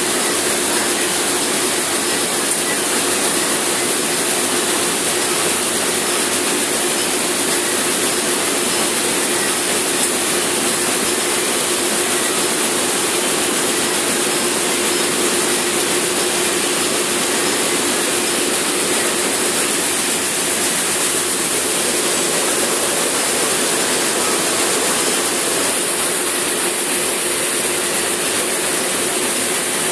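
Steady, unbroken mechanical din of seed-processing plant machinery running, with a constant hum under it.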